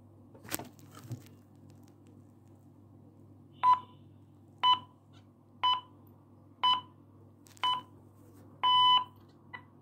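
Radio time signal: six short beeps about a second apart, the sixth held longer, marking the top of the hour. It plays through a small Soviet 'Beshtau' wired-radio loudspeaker, with a faint click about half a second in and a low hum underneath.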